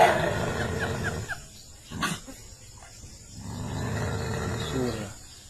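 A dog growling in two long stretches, with a short bark about two seconds in.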